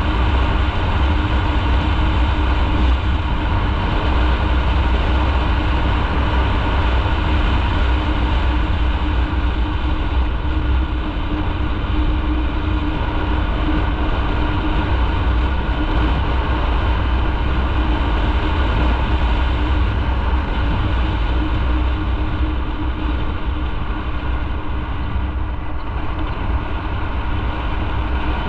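Motorcycle engine running steadily while riding, with road noise; it eases slightly for a few seconds about three-quarters of the way through.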